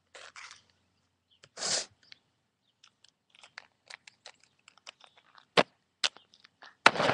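Small plastic toy figure tapped and scraped along stone paving, making a series of irregular sharp clicks, with two louder scuffs close to the microphone, one about two seconds in and one near the end.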